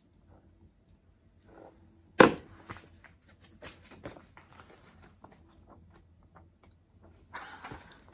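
A glass set down on a wooden table with one sharp knock about two seconds in, then the paper pages of a small notebook rustling and ticking as they are leafed through, with a louder rustle of pages near the end.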